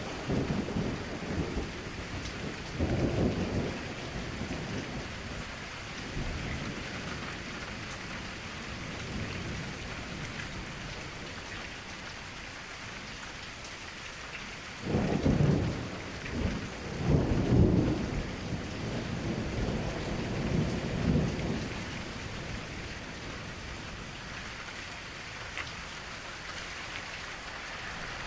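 Steady rain with rumbles of thunder: a short rumble about three seconds in, and a longer, louder roll of thunder from about halfway through that swells several times before fading.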